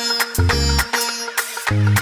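Background music with a steady beat: repeated deep bass notes and sharp percussion hits with a shaker-like rattle, over sustained pitched tones.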